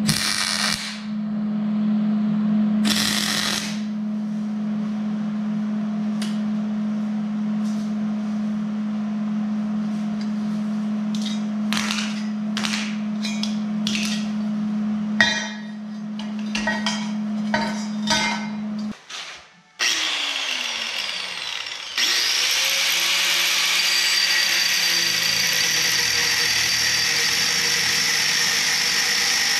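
Wire-feed welder arc crackling in short bursts over a steady low hum, followed by scattered sharp metallic clicks. About twenty seconds in, an angle grinder spins up and then cuts steel held in a bench vise with a loud, steady grinding to the end.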